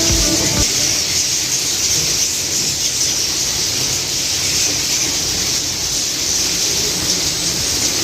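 A large colony of swiftlets inside a nesting house, many birds calling at once in a continuous high-pitched din.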